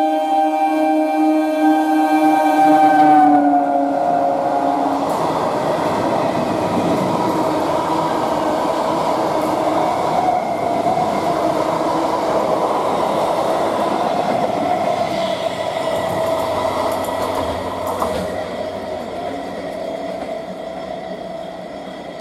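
Electric multiple unit local train sounding a loud horn as it approaches, the horn's pitch dropping as the train passes at speed. Then the steady rushing noise of its coaches running through the station with a steady hum, fading away near the end.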